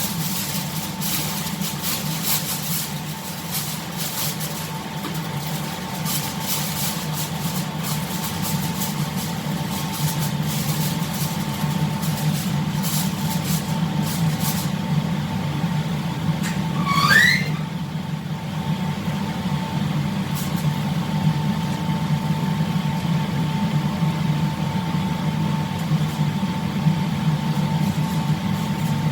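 Steady low drone of a ship's machinery, with a faint steady tone above it. Light clicks and rattles in the first half, and one short rising squeak a little past the middle.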